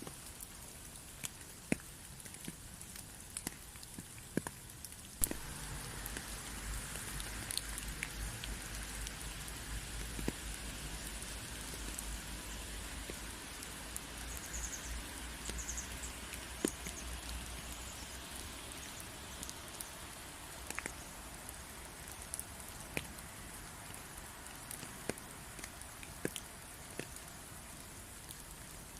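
Rain falling steadily, with individual drops ticking sharply over the hiss. About five seconds in it grows louder, with a low rumble underneath that fades out about two-thirds of the way through.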